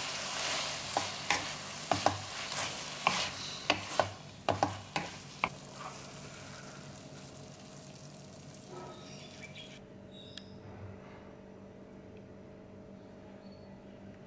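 Beef strips sizzling in a nonstick wok while a wooden spatula stirs them, knocking against the pan every half second or so. After about five seconds the stirring stops and the sound falls to a faint sizzle with a steady low hum.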